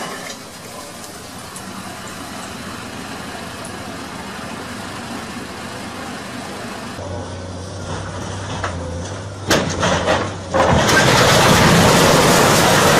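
Excavator demolishing a bridge: steady machine and demolition noise. Partway through, a low steady hum sets in, a few sharp knocks sound, and then comes a loud, sustained crashing rumble of falling bridge debris that lasts to the end.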